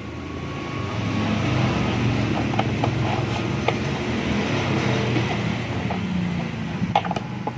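A motor running steadily with a low hum, building over the first second or two and easing off near the end, with a few clicks.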